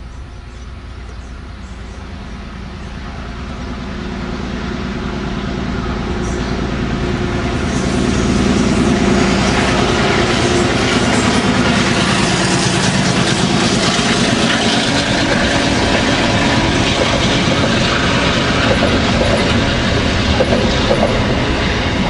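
Two diesel-electric locomotives hauling a container freight train, growing louder over about the first eight seconds as they approach, with a steady engine drone. They pass close by and give way to the clatter and rattle of the container wagons rolling over the track.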